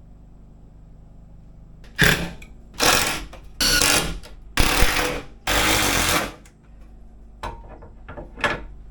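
A mechanical tool run in five short, loud bursts about a second apart, followed by a few light clicks.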